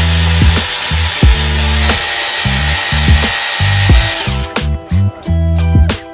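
Pellenc Helion 3 battery hedge trimmer running, its blades giving a steady high buzzing hiss that cuts off about four and a half seconds in. Background music with a steady beat plays under it and carries on alone afterwards.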